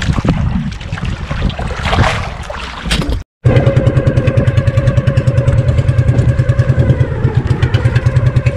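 Wind and water rushing and slapping around a small outrigger boat for about three seconds; then, after a sudden cut, the boat's small inboard engine running steadily with a fast, even pulse.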